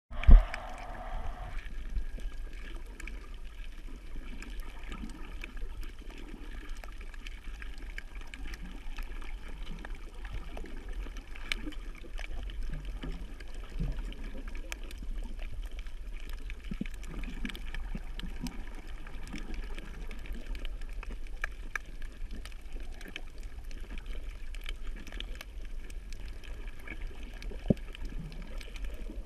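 Underwater sound of a camera moving over a coral reef: a steady, muffled low rumble of water with scattered faint clicks and crackles. A brief loud burst comes at the very start.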